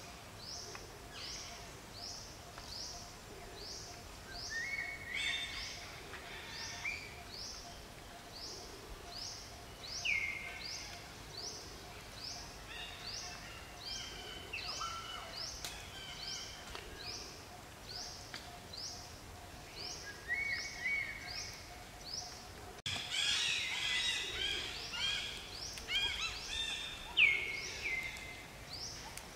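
Birds calling outdoors: a short, high call repeats about one and a half times a second throughout, with other chirps and brief whistles over it. A little past two-thirds of the way in, the chirping turns louder and busier.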